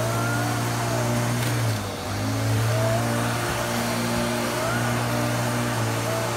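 Electric lawn mower running steadily as it is pushed over grass, with a steady motor hum; the sound dips briefly about two seconds in.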